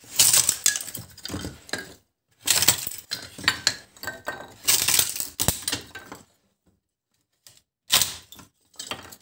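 Homemade lever kindling splitter's sharpened steel blade forced down through three wooden boards at once: the wood cracks and splits and the thin kindling sticks clatter together. It comes in two long stretches of crackling and clatter, then two short clatters near the end.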